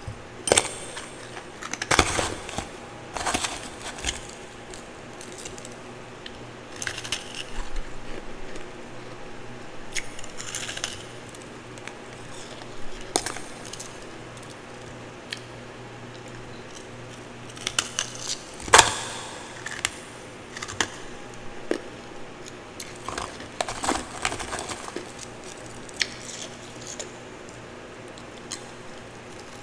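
Close-up crunching of twice-refrozen powdery ice, chewed and broken apart in irregular bursts, with the loudest crunch about two-thirds of the way through.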